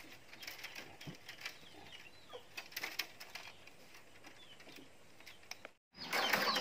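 Faint clicking and rustling of dry bamboo strips being worked into a woven basket, with small birds chirping faintly in the background. Near the end the sound cuts out for a moment and comes back louder, with the chirps and the bamboo rustle more prominent.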